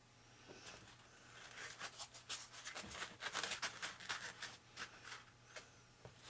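Hands handling a foam RC flying wing and fitting a cut foam piece into it: a run of quick scratchy rubs and clicks, busiest from about one and a half to four seconds in.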